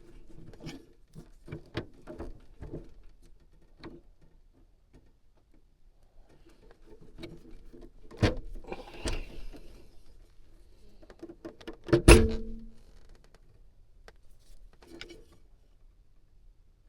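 Wire cutters and strippers working on low-voltage thermostat wire: a run of small clicks and handling rustle, with sharp snaps of the cutters about 8 and 12 seconds in, the second the loudest.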